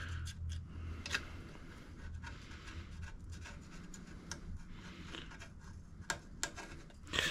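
Razor blade scraping stuck-on gasket material off the sealing flange of a small engine's aluminium crankcase, in light hand strokes with scattered small ticks over a low steady hum.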